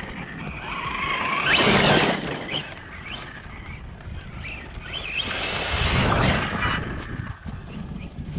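Brushless motor of a Losi Tenacity TT Pro 4WD RC truck whining up and down through two bursts of acceleration over dirt, one about two seconds in and a louder one about six seconds in, over the rush of tyres on the ground.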